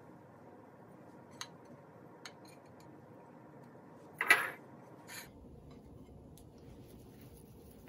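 A few faint clicks, then one short, sharp clatter a little over four seconds in and a softer one just after, from hands handling a ceramic plate of dough on a granite countertop.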